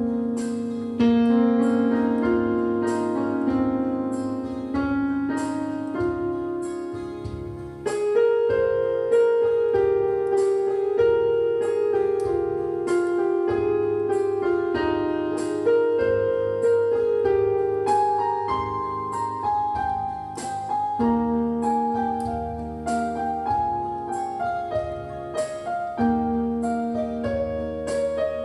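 Background piano music, with a new note or chord struck about every second.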